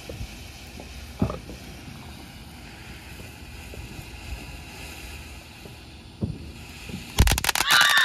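Wind on the microphone with a couple of soft thumps, then about seven seconds in a loud, fast run of firework bangs and crackling begins.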